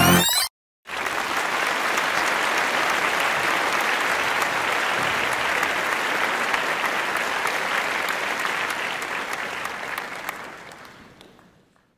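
Music cuts off half a second in. About a second in, a crowd starts applauding, with steady clapping that fades out near the end.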